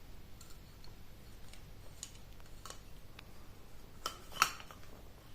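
Light clicks and taps of small plastic and metal parts being handled while an extension cable's female connector is being rewired, with a louder cluster of sharp clicks about four seconds in.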